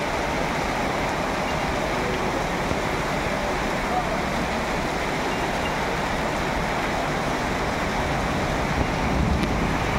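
Heavy rain pouring down steadily, a dense unbroken hiss of falling water.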